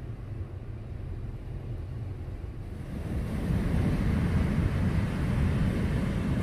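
Sea surf breaking on a beach: a low, muffled rumble of waves at first, then, about three seconds in, louder breaking surf with wind blowing on the microphone.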